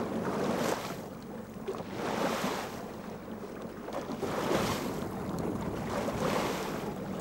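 Oars of a small rowing boat dipping and pulling through the sea, a splash and wash of water about every two seconds with each stroke.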